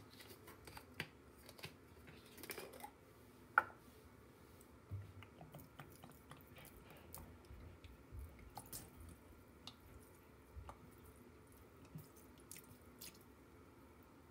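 Mint mouthwash glugging faintly out of a plastic bottle onto soft sponges, with scattered small clicks and taps from the bottle being handled.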